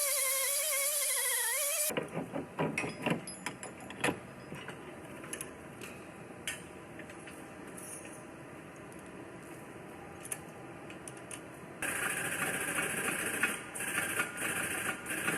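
A short gliding tone with hiss over the first two seconds, then scattered clicks and taps, and from about twelve seconds in a spell of crackling, ticking welding as pull tabs are welded onto the edge of a car's quarter panel.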